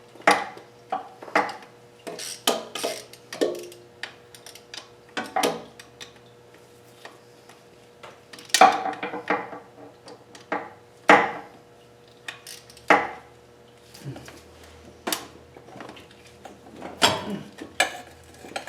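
Hand wrench clinking and clanking against metal nuts and studs while turbo and exhaust-manifold fasteners are worked loose: a series of irregular sharp metallic clicks, a few louder clanks among them, over a faint steady hum.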